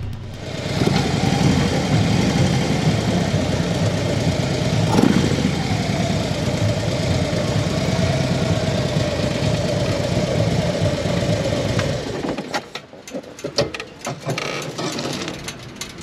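Harley-Davidson motorcycle engine running at a steady idle with a held whine, shut off about twelve seconds in, followed by scattered clicks and knocks.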